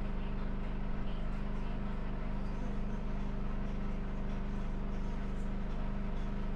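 Steady low motor hum with even overtones, unchanging throughout, typical of an engine or generator running.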